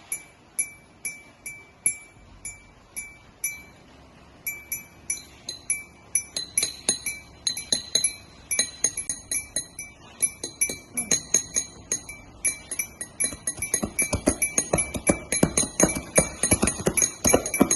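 A small bell rung in quick strokes, about two a second at first, then faster and more irregular. Dull knocks join in about eleven seconds in and grow louder toward the end.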